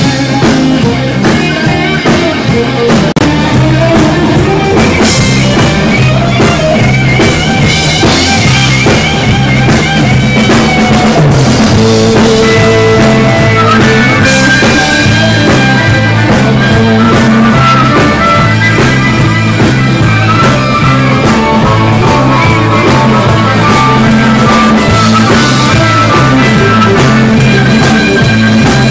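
Live blues-rock band playing loudly: electric guitars and a drum kit keeping a steady beat, with a harmonica played into the vocal microphone, its held, wavering notes standing out in the second half.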